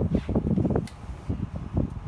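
Wind buffeting the microphone in low, uneven gusts of rumble.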